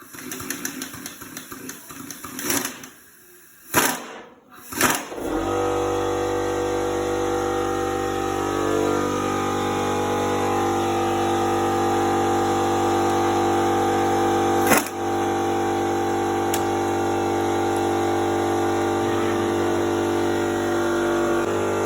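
A few sharp metal clanks, then a motor starts about five seconds in and runs at a steady pitch for about sixteen seconds, with a single sharp click partway through, before cutting off abruptly.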